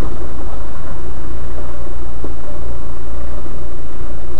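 Engine of a 4x4 crawling along a rough, muddy off-road track, heard from inside the cab as a loud, steady low rumble.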